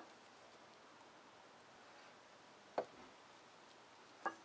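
Three short, sharp clicks of small metal parts being handled as the piston cylinder block of a Hydro-Gear hydrostatic transmission's drive motor is lifted out of its housing. One comes at the start, one a little before three seconds and one near the end, with quiet between.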